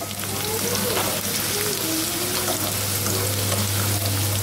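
Minced garlic and red chili frying in hot oil in a wok: a dense, steady sizzle and crackle as the aromatics cook toward light golden, with a steady low hum underneath.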